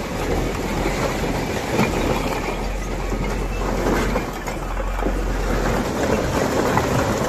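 A load of red clay bricks sliding and clattering off the raised steel bed of a tipper truck onto a pile, a continuous dense rattle of brick knocking on brick and steel. The truck's engine runs underneath as a low steady hum that drops away about six seconds in.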